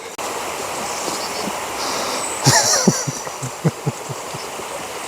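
Steady rush of river water flowing, starting abruptly just after the beginning.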